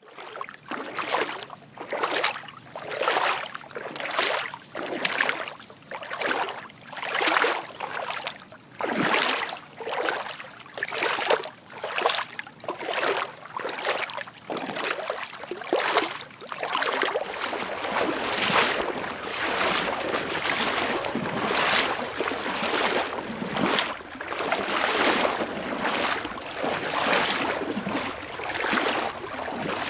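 Someone wading through sea water on foot: a rhythmic splash and swish of legs pushing through the water, about one stride a second. From about halfway through, the strides run together into a more continuous wash of churning water.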